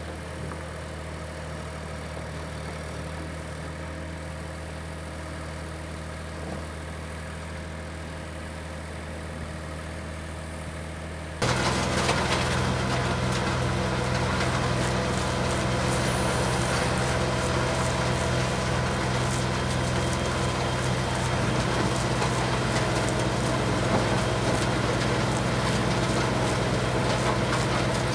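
Vehicle engine running steadily at a constant idle, a low even drone. About eleven seconds in it abruptly gets louder and harsher and stays that way.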